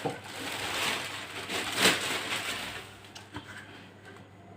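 Packaging rustling and crinkling as a 12-inch subwoofer is handled and unwrapped, with a sharper crackle about two seconds in, then fading down.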